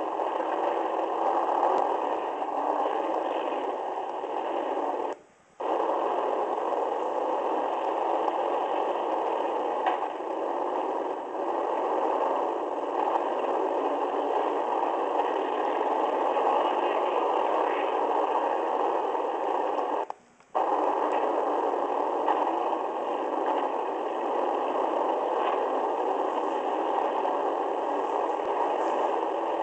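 Steady, distorted roar of a demolition derby car's engine and surrounding arena noise, picked up by a cheap onboard camera microphone so it sounds thin and muffled. The sound cuts out abruptly twice for about half a second.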